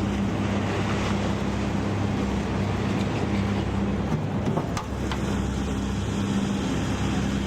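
An engine running steadily with a constant low hum, under a continuous rush of wind and motion noise.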